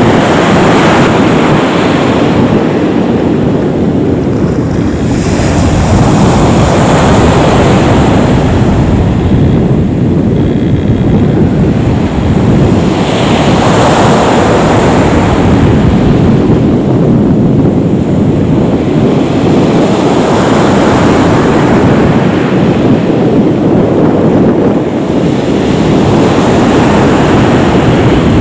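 Airbus A320-232's IAE V2500 jet engines running at taxi power as the airliner turns onto the runway and lines up. The loud rumble is heavily mixed with wind buffeting the microphone and swells and eases about every six seconds.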